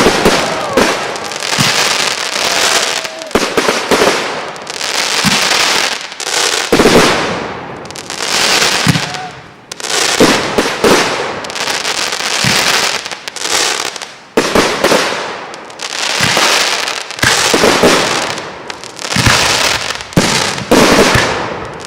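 Aerial fireworks bursting in quick succession: sharp bangs about every second or two, each trailing off in a crackling hiss.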